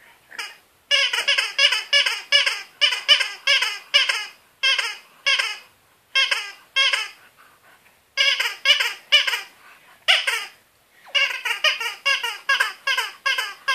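Red rubber spider dog toy squeaking over and over as a French Bulldog chews it: runs of short squeaks, about two to three a second, each sliding down in pitch, with a couple of brief pauses.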